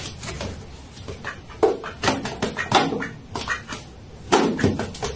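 A cat and a domestic duck squabbling: a run of short, sharp animal calls in quick succession, loudest in a cluster from about one and a half to three seconds in and again just after four seconds.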